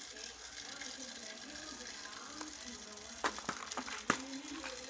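Food sizzling in hot oil, a steady crackling hiss, with a few sharp clinks of a utensil about three to four seconds in.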